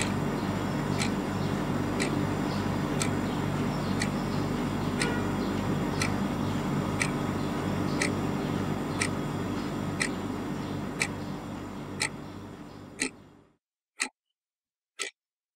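Clock ticking steadily, about once a second, over a steady low room hum. The hum fades out near the end, leaving only the ticks.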